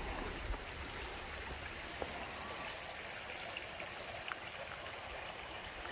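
A forest creek running steadily, a continuous even rush of flowing water.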